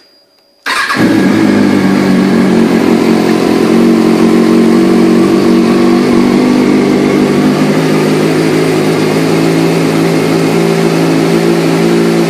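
Kawasaki ZX-6R 636's inline-four engine starting under a second in, catching at once and settling into a loud, steady idle.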